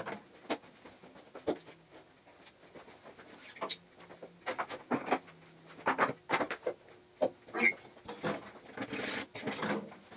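Scattered clicks, knocks and rustles of handling at a manual screen printing press: tape peeled and a plastic inkjet film positive pulled off the aluminium palette, and a screen frame lifted on the press.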